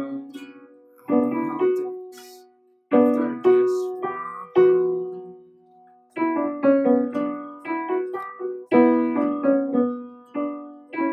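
Solo piano music: slow notes and chords struck one after another, each left to ring and fade, with short pauses between phrases and quicker notes in the second half.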